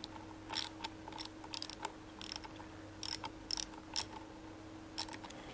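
A small ratchet clicking in short spells, every half second or so, as a T30 Torx bit turns out a motorcycle's clutch lever pivot pin.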